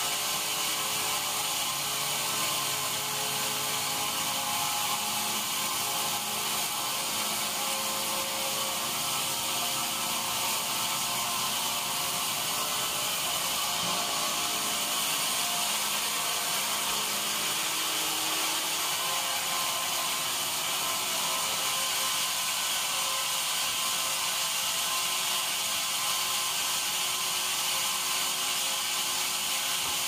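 Large log band saw running steadily as its blade saws along a mahogany log, a continuous machine noise with a strong high hiss.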